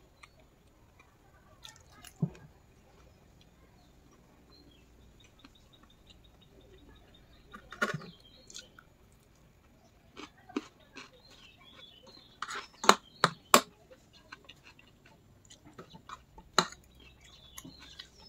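Eating fried noodles: a metal fork and spoon click and scrape against a plate between quiet chewing. The sharp clicks come irregularly, and the loudest run of them is about two-thirds of the way through.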